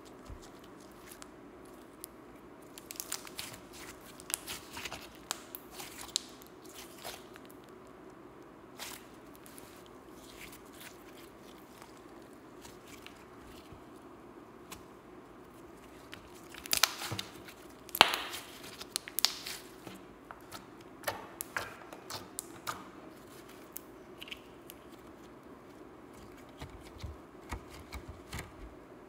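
Slime being squeezed, stretched and kneaded by hand: scattered sticky clicks, pops and crackles in bunches, loudest a little past halfway.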